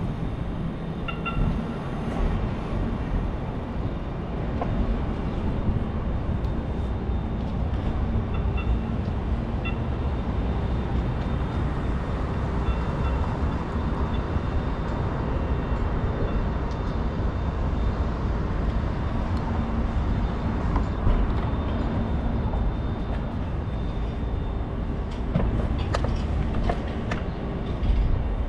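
Steady rumbling road and wind noise from riding a bicycle through city streets, with a few faint short squeaks.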